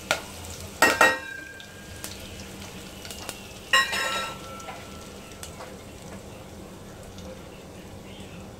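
Cumin seeds, curry leaves and star anise sizzling in hot oil in an aluminium pressure cooker: a tempering being fried. A few sharp metallic clanks ring out about a second in and again near four seconds in as the pot is stirred, and then the sizzle carries on steadily.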